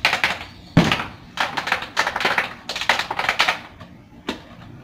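A plastic bottle from a bottle-flip challenge clattering and knocking on a hard surface in quick bursts of taps, about every half second to second, as the flip attempts fail.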